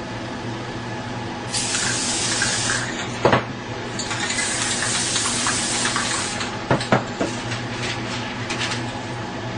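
Aerosol spray-paint can hissing in two long bursts of about a second and two seconds, then in shorter spurts, with a sharp knock between the two long bursts and two more about two-thirds through, over a steady low hum.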